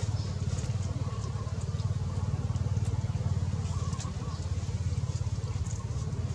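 A steady low engine rumble with a fast, even pulse, like a small motor running nearby, and faint scattered ticks over it.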